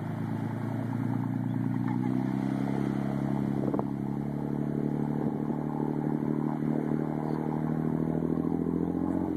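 Motorboat engine running hard at steady high revs, under load while dragging a grounded boat off a sandbar. It builds over the first second or two, then holds steady.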